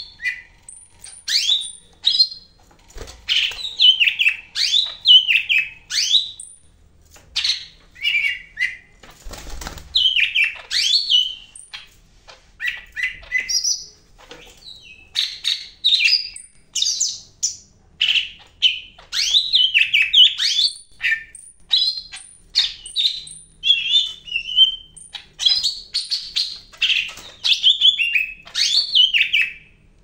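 Caged cucak ijo Medan (yellow-headed green leafbird) singing hard: a near-continuous stream of short, varied, fast-sweeping high notes with only brief pauses. A short rustle sounds about nine seconds in.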